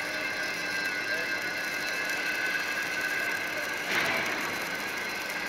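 Automatic arc welding by a column-and-boom welding machine on a steel drum's seam, heard as a steady hiss with a steady high whine. A short louder burst comes about four seconds in.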